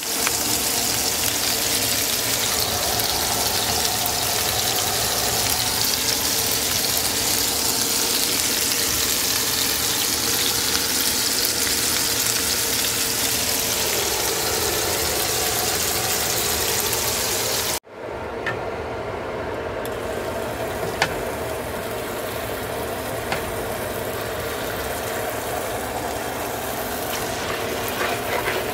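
Meatballs sizzling in hot oil in a nonstick frying pan, a steady loud hiss. After a sudden break about two-thirds of the way in, a quieter steady hum with a few light clicks follows.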